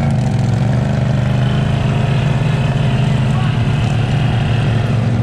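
ATV engine running steadily at a constant speed under way, a steady drone.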